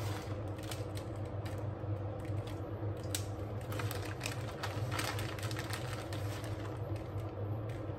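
Plastic bag of grated cheese crinkling as the shreds are shaken out onto a sandwich on parchment paper: irregular small ticks and rustles over a faint, steady low hum.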